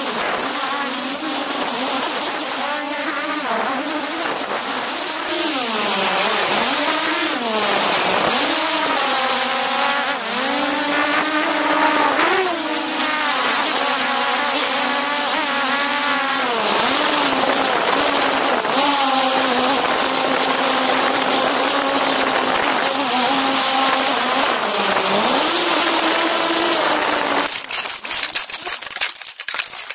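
DJI Mavic 2 Pro quadcopter's propellers whining close up over a rushing hiss, the pitch sliding up and down as the motors change speed. Near the end the whine cuts out and a run of irregular knocks and clatter follows as the drone crashes through branches to the ground.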